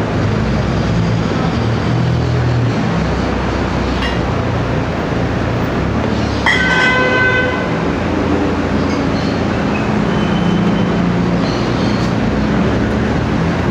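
Street traffic: vehicle engines running in a loud, deep drone that swells and eases, with a brief shrill tone about six and a half seconds in.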